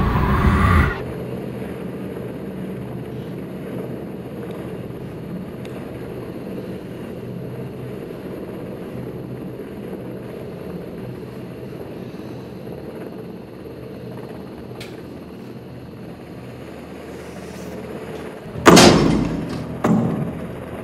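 Horror-film sound design: a rising swell cuts off about a second in, then a steady low rumbling drone, then two loud booming impacts near the end, about a second apart, the first the louder.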